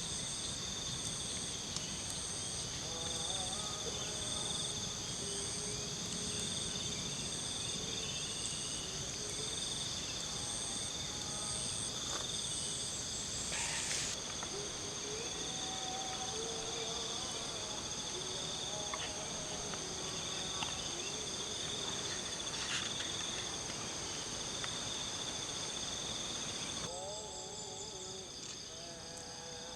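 Night chorus of crickets and other insects: several steady, shrill trills layered together, the highest pulsing about twice a second, with fainter wavering lower calls underneath.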